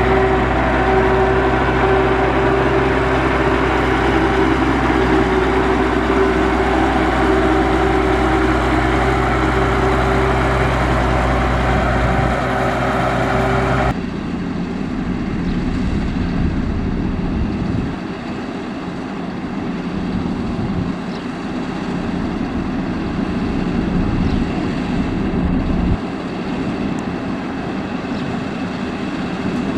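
Diesel engine of heavy road-construction machinery running steadily with a held hum. About halfway through the sound switches suddenly to a rougher engine noise without the steady hum.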